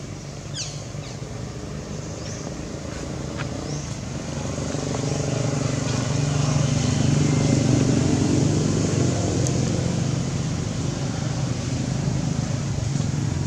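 A motor vehicle's engine hum, growing louder through the first half and staying loud to the end.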